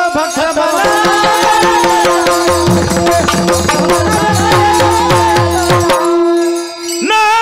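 Varkari kirtan bhajan: male voices singing over small brass hand cymbals (taal) clashing in a fast, steady rhythm, with deep pakhawaj drum strokes and a held steady note beneath. The drum drops out briefly near the end.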